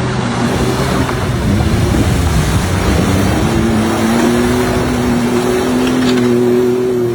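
Off-road 4x4 engine running at high revs under load. The pitch climbs about three seconds in and then holds steady, over a heavy wash of tyre and terrain noise.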